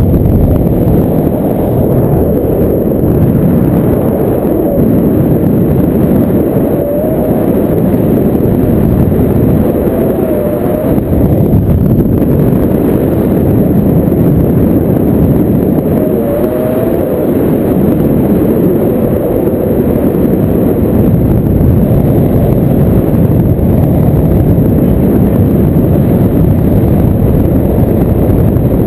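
Wind buffeting the camera microphone in flight: a loud, steady low rumble without a break.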